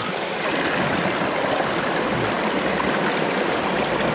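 Steady rush of flowing creek water, a little louder from about half a second in.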